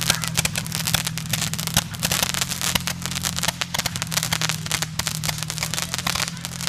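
Roman candles firing, a dense run of sharp pops and crackles, over the steady running of an ATV engine.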